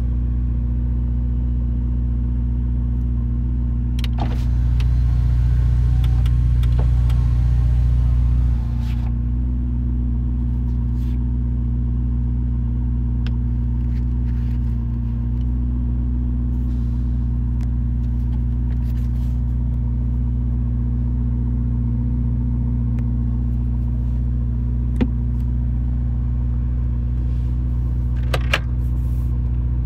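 Ferrari SF90 Stradale's 4.0-litre twin-turbo V8 idling steadily with a deep, even rumble. It gets a little louder for a few seconds about four seconds in, then settles, and a few light clicks come near the start and near the end.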